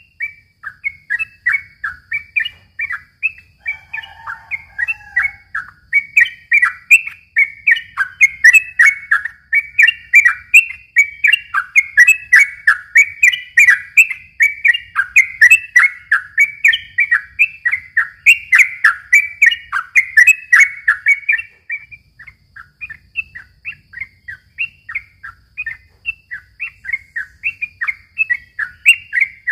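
Sooty-headed bulbul (trucukan) singing a long, unbroken run of quick chirping phrases, about four notes a second, in full song. The run is loudest in the middle and turns thinner and sparser near the end, with a brief lower call about four seconds in.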